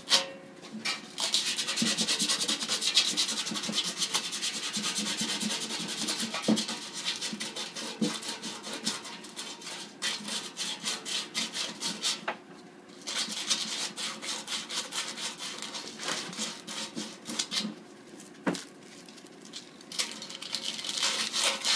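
Sandpaper scrubbed quickly back and forth by hand on the stainless steel around a dimpled hole in a keg, a scratchy rubbing that stops briefly twice. The metal is being sanded clean so the silver solder will adhere.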